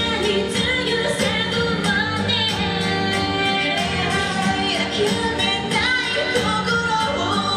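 Live pop band performance with a woman singing over a steady drum beat and sustained instruments.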